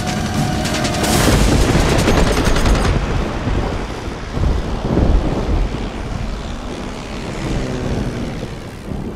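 Rapid machine-gun fire from propeller fighter planes in a dogfight, dense for a couple of seconds, with a few heavy hits about halfway through. After that the planes' engines drone on more quietly.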